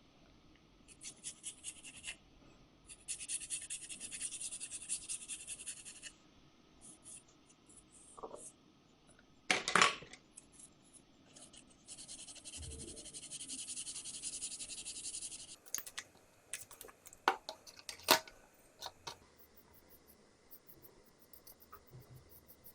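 Needle file scraping across 3D-printed PETG plastic in quick back-and-forth strokes, in runs of a few seconds, to bring back worn-off detail. A few sharp knocks and clicks come in between, the loudest about ten seconds in.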